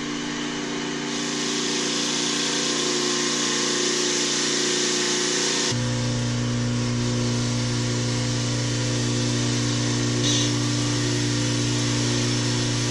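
A power tool running steadily while it cleans rust and corrosion off the starter's mounting bolts. A harsh hiss of the scrubbing comes in about a second in, and a deeper hum joins about halfway.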